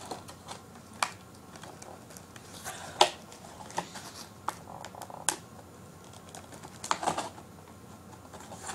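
Cardboard toy packaging being handled as its tape is worked free: irregular sharp clicks and taps of fingers and cardboard, loudest about three seconds in, with a short cluster near seven seconds.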